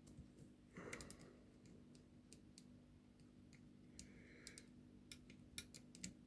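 Faint scattered clicks and short scrapes of a picking tool working the levers inside an ELZETT Martis lever deadlock.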